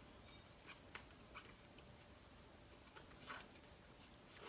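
Faint scattered rustles and light clicks of a foil trading-card pack being opened and its cards handled, over quiet room tone.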